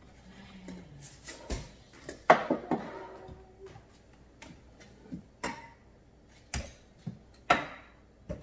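Spice jars and bottles knocking and clinking against a kitchen cabinet shelf and each other as they are taken down and set out: a string of sharp knocks, the loudest about two seconds in, some with a short glassy ring.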